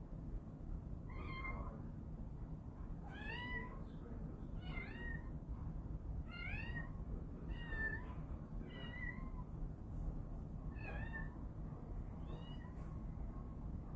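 A kitten meowing over and over, about eight meows, each rising and then falling in pitch, over a low steady background rumble.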